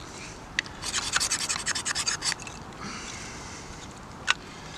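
Ferro rod struck with the back of a saw blade to throw sparks onto wood shavings: a quick run of sharp rasping strokes, then a softer scrape and a single sharp click near the end.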